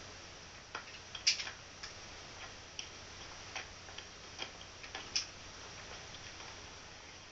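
A quiet stretch of an old film soundtrack played through a laptop speaker: a steady hiss with faint, irregular clicks and ticks, about one a second.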